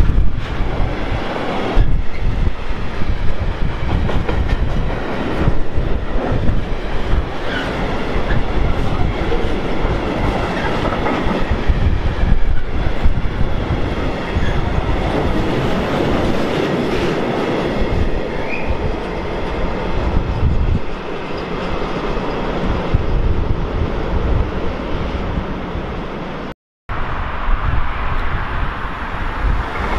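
A train passing close by at speed: a loud, continuous rumble with wheels knocking over the rails. It breaks off for a moment near the end, then carries on.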